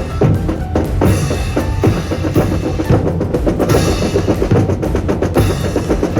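Military student brass band playing, with snare and bass drums driving a fast, busy rhythm under sustained band tones.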